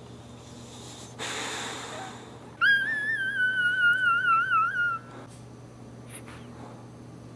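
A newborn Boxer puppy crying: one high, wavering squeal lasting about two seconds, the loudest sound here, coming a moment after a breathy huff of snuffling. A couple of faint snuffles follow.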